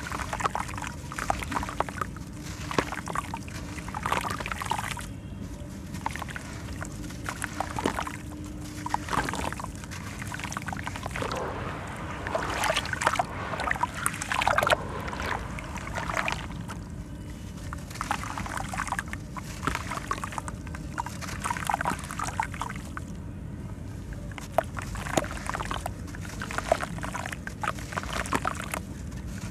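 Soft sand-cement chunks crumbled by hand into a tub of water: gritty crumbling and trickling of grains into the water, with sloshing of wet cement sludge as it is squeezed, in irregular bursts.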